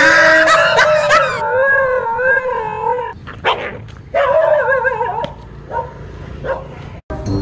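A dog barking at first, then two long wavering howling cries with short yelps between them, as it attacks a stuffed fake tiger.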